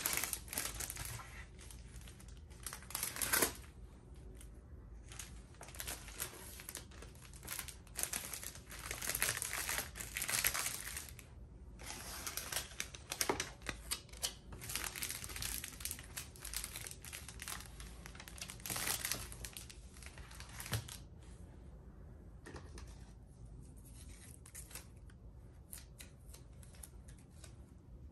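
Clear plastic cellophane sleeves crinkling and rustling in irregular bursts as they are handled and a card is slid inside, growing fainter over the last several seconds.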